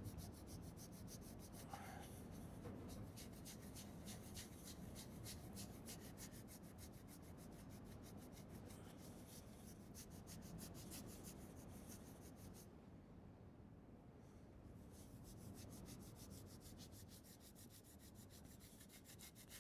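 Faint, quick, rhythmic rubbing of a cloth working Autosol metal polish by hand over a chrome motorcycle exhaust, pausing for a couple of seconds about two-thirds through before carrying on.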